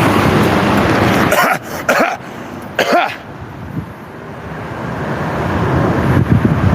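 A person coughing a few sharp times, about a second and a half in and again near three seconds in, over the steady noise of road traffic that drops away before the coughs and swells again toward the end.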